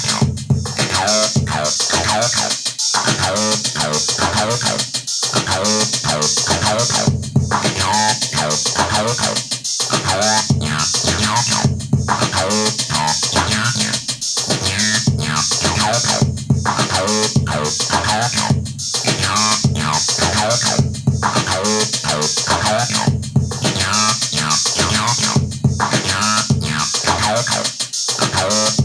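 Acid electronic music played live on hardware: a Behringer TD-3 bass synthesizer runs a fast, squelchy resonant-filter bassline over drums from a Maschine setup, the pattern repeating every couple of seconds.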